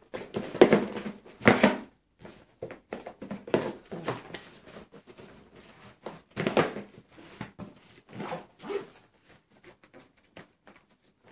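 Clear plastic tackle boxes being slid and knocked into a heavy nylon tackle bag, plastic clattering against plastic with fabric rustling. Near the end the bag's lid zipper is pulled shut.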